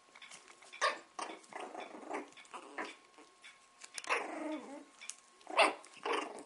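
Puppies growling and yipping while they play-fight, in a string of short growls and yaps. There is a longer growl about four seconds in and the loudest yap near the end.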